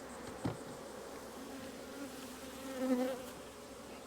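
Honeybees buzzing around an opened hive, a steady drone, swelling louder about three seconds in as a bee flies close by. A short knock sounds about half a second in.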